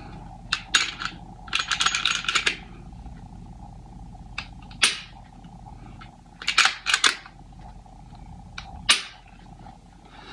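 Glock pistol being dry-fired to test a newly fitted 3-pound trigger: a quick run of clicks as the slide is worked, then a single sharp click as the trigger breaks, twice over.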